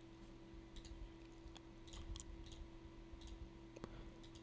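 Faint, irregular computer mouse clicks, some in quick pairs, over a steady low hum.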